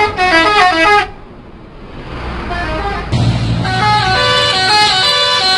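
Bus 'telolet' horn, a multi-tone musical horn, playing a quick tune of stepped notes that cuts off about a second in. After a low rumble, the horn tune starts again past the middle.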